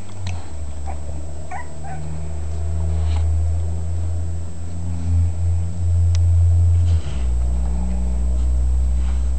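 Two-week-old puppies giving a few brief squeaks and whimpers over a loud, steady low hum that drops lower about seven seconds in.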